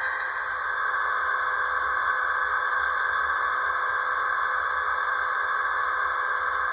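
HO-scale model trains running on the layout track: a steady hiss of wheels and motors with a few thin, unchanging high tones.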